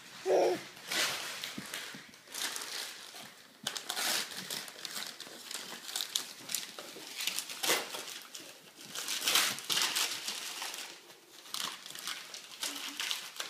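Wrapping paper crinkling and rustling in irregular bursts as presents are unwrapped.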